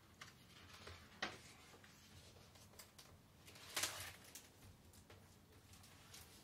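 Faint handling noise from a hardcover picture book: soft rustles and taps as its pages are turned and the book is closed and flipped over, with the loudest swish about four seconds in.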